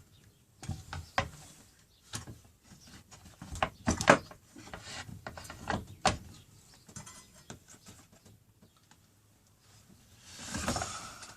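Unpowered circular saw being pushed along its guide track by hand: a series of sharp knocks and clicks, then a longer sliding scrape near the end. The saw is catching where two track sections join, which the owner puts down to the rear knob.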